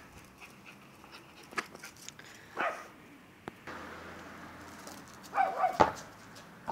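Jack Russell terrier barking during play with a ball: one short bark about two and a half seconds in, then a louder quick run of two or three barks after about five seconds. A few light knocks are heard between them.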